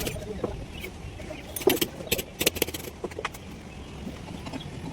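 Sharp metallic clinks and taps, like hand tools on metal parts, irregular and bunched near the middle, over a steady low rumble.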